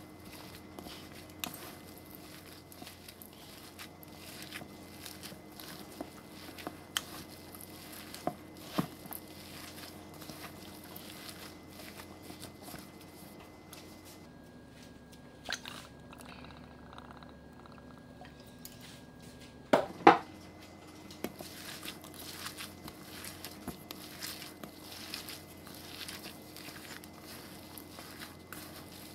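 A gloved hand squeezing and kneading a wet, chunky burger mixture in a stainless steel bowl: soft squelching and crinkling with small clicks. The mixing pauses for a few seconds past the middle, which ends with a sharp double knock, the loudest sound.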